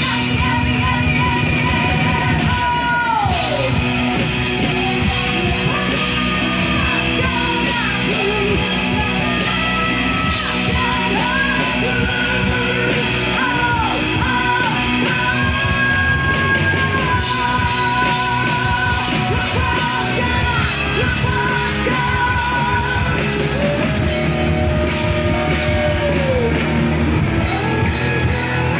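Rock band playing loud, with electric guitar and a woman singing; long held notes slide and waver over a steady band backing.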